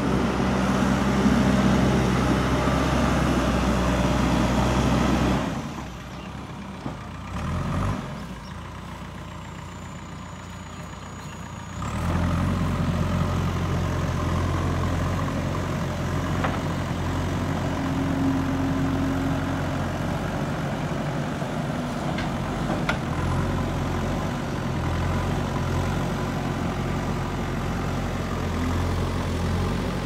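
JCB 3DX backhoe loader's diesel engine running steadily as the machine works. It drops much quieter from about five seconds in and comes back loud about twelve seconds in, then runs on steadily.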